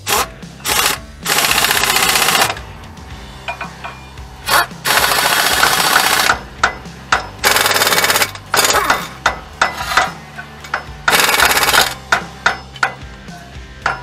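Pneumatic impact wrench fired in bursts on a truck's front wheel hub: four long runs of a second or so, with several short blips between them, over background music.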